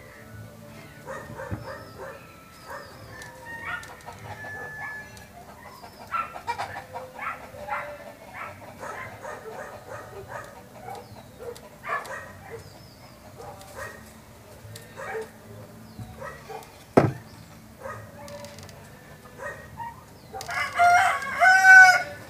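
A rooster crowing loudly near the end, after scattered short chicken calls. A single sharp knock sounds about two-thirds of the way through.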